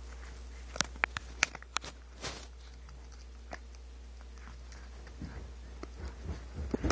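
A puppy gnawing on a rolled rawhide bone: a cluster of sharp clicks and crunches about a second in, then scattered softer chewing sounds that pick up again near the end.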